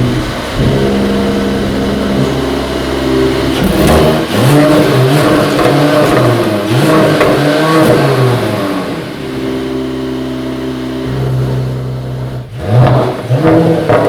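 Mercedes-AMG CLS 53's turbocharged 3.0-litre straight-six being revved while stationary. It idles steadily, is blipped up and back down several times, settles back to idle, and after a brief break is revved again near the end.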